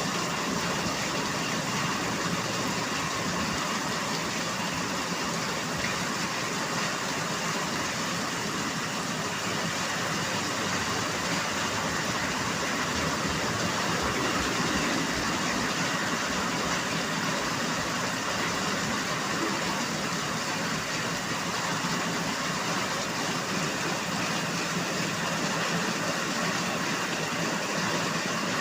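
Steady rainfall, an even hiss that holds without break or change.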